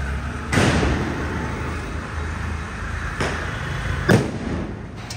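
Firecrackers going off outdoors: three sharp bangs in about four seconds, the first and last the loudest, each with a brief echo. A steady low rumble runs underneath.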